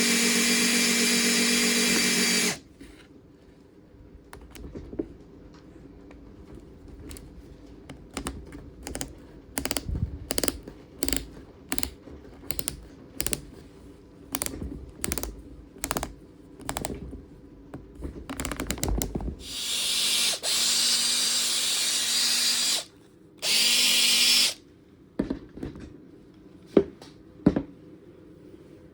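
Makita DF458D 18V cordless driver drill's brushed motor running free at a steady speed with a high whine, stopping after about two and a half seconds. A string of separate clicks and knocks follows, and then the drill runs again twice, first for about three seconds and then for about one.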